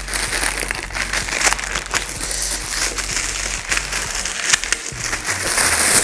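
Plastic wrapping crinkling and rustling as it is handled and pulled off a boxed wireless microphone receiver.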